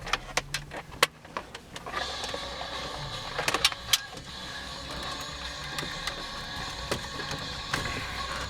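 Plastic dash trim being pried off its clips: scattered sharp clicks and knocks as clips let go and panels shift, most of them in the first second and around four seconds in, over a steady hiss.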